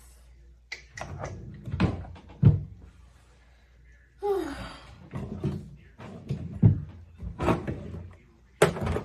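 A series of irregular knocks and thumps, like objects being handled and set down on a hard surface.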